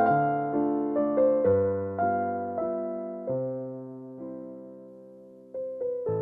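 Background music: gentle piano (electric piano) playing slow chords, with the notes ringing out and fading through a sparse passage before picking up again near the end.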